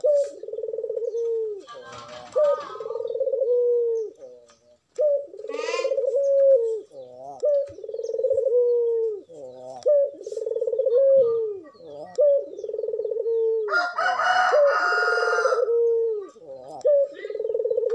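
Barbary dove (puter) cooing over and over: low, rolling coos about a second each that trail off downward, one after another. Twice a higher, shriller bird call cuts in, longest near the end.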